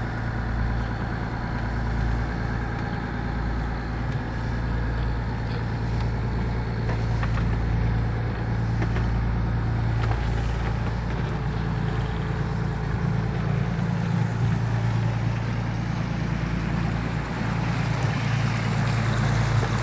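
Fishing boat's engine running steadily, a constant low drone with the rush of water and wind over it.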